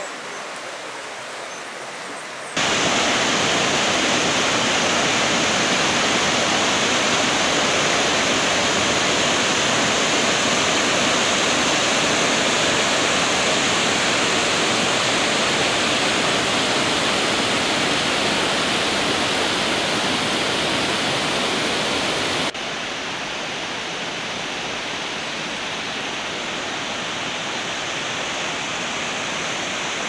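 Waterfall, a steady rush of falling water. It jumps abruptly louder about two and a half seconds in and drops back abruptly about three quarters of the way through.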